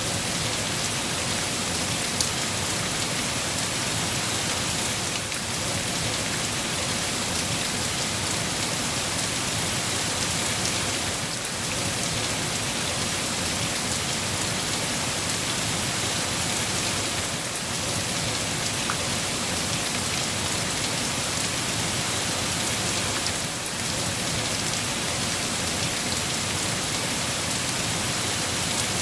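Steady, heavy rain falling on a surface, a constant hiss with scattered individual drop ticks.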